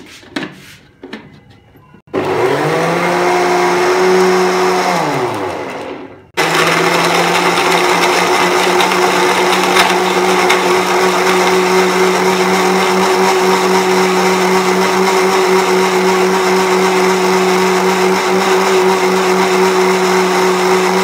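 Electric countertop blender blending watermelon cubes into juice. After a few clicks as the lid is fitted, the motor starts about two seconds in, runs briefly, winds down and stops, then starts again about six seconds in and runs steadily at a constant pitch.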